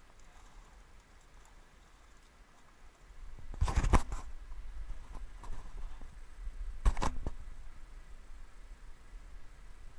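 Faint patter of water dripping from a fish net, then loud knocks and rubbing from the action camera being handled: a cluster about three and a half seconds in, and one more sharp knock about three seconds later.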